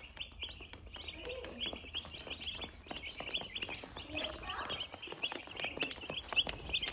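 A flock of day-old broiler (meat) chicks peeping nonstop, a dense chorus of short, high, overlapping chirps.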